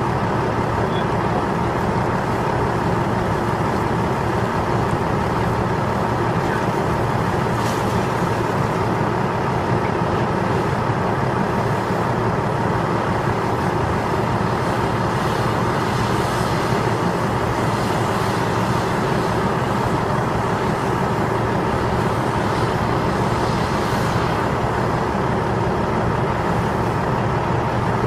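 Heavy diesel engines of a Cat 6015B hydraulic mining shovel and Cat 777 haul trucks running steadily under load during loading, a loud continuous drone.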